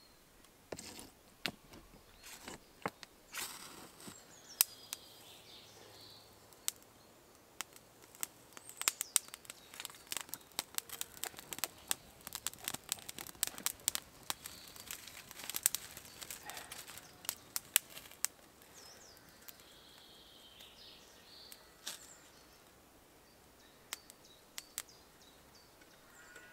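Small wood fire crackling and snapping as dry kindling catches and is fed, the pops thickest in the middle stretch. Birds chirp in the background.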